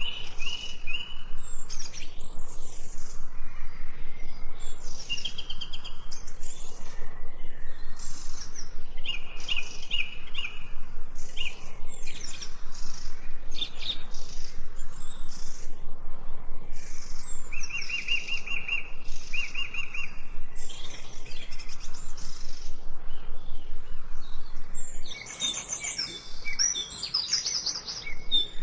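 Small songbirds chirping and singing, with repeated short trills and calls over a faint background hiss. About 25 seconds in, the sound drops quieter and a busier burst of chirps takes over.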